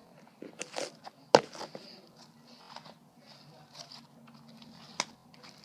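Clay butter slime being squished and mixed by hand: soft sticky crackles and small clicks, with two sharp pops, one about a second and a half in and one near the end.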